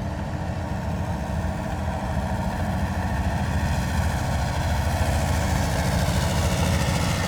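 Heavy military vehicle's engine running with a deep, pulsing low rumble, growing steadily louder as it draws near.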